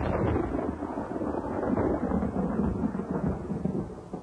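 Thunder: a sudden clap, then a long low rumble that slowly fades.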